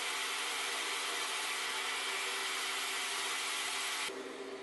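Die grinder running with its grinding stone against the flat side of a running 14-inch Delta bandsaw blade, truing the blade to reduce its flutter: a steady hiss over the saw's hum. About four seconds in the hiss drops away, leaving the bandsaw running.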